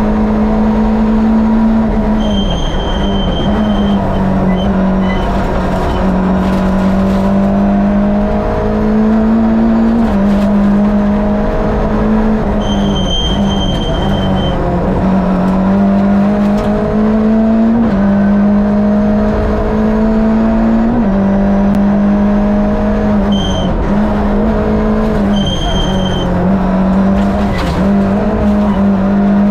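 Fiat 2.0-litre twin-cam 8-valve four-cylinder engine in a Lada VFTS rally car, heard from inside the car. It is driven hard through the gears, its pitch climbing steadily and then dropping sharply at each gear change every few seconds.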